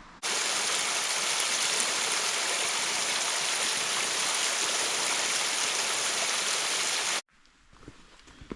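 Loud, steady rush of flowing water, like a stream or small waterfall heard close up, cutting in suddenly a moment in and cutting off suddenly near the end.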